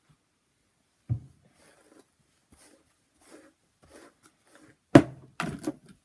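Hair being handled by hand close to the microphone: faint rustling, a dull thump about a second in, then a sharp knock and a short run of smaller knocks near the end.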